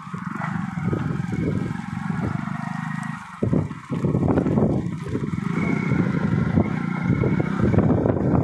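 Engine of a slowly moving vehicle running steadily, with wind rumbling on the microphone.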